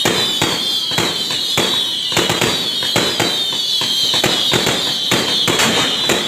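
Fireworks bursting in rapid succession, several sharp bangs a second, over a continuous high-pitched whine.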